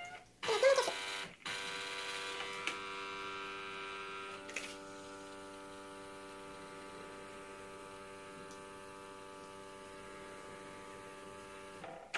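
Cecotec Power Matic-ccino 7000 bean-to-cup coffee machine running its pump with a steady hum while it dispenses coffee into a cappuccino. A brief louder sound comes about a second in. The hum eases a little partway through and stops just before the end, as the drink finishes.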